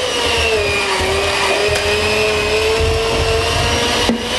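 Electric hand mixer running steadily, its beaters working dry ingredients into cookie dough, with a motor whine that wavers a little in pitch. Near the end the whine dips briefly in pitch, then picks up again.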